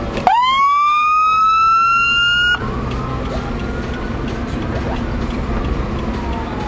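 Police escort siren heard from inside a following car: it winds up in a quick rising wail, holds a high steady tone, and cuts off suddenly after about two and a half seconds. A fainter siren tone then slides slowly down over the car's engine and road rumble.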